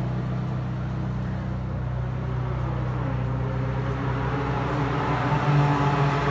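Ferrari 458 Speciale's naturally aspirated V8 idling with a steady low hum, growing a little louder near the end.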